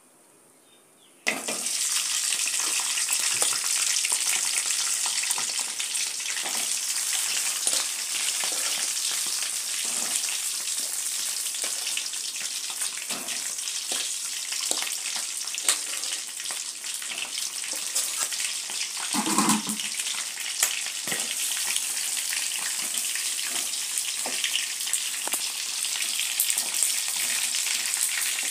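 Chicken sizzling as it fries in hot oil in a deep metal pan. The sizzle starts suddenly about a second in and runs on steadily, with scattered clicks from stirring. There is one brief louder knock about two-thirds of the way through.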